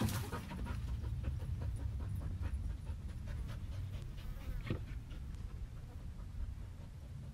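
A dog panting rapidly, the breaths growing weaker toward the end, over a steady low rumble.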